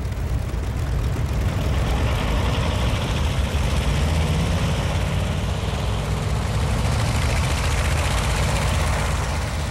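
Piston engines of several propeller warplanes running together on a carrier flight deck: a dense, steady low rumble with a constant rush of noise over it.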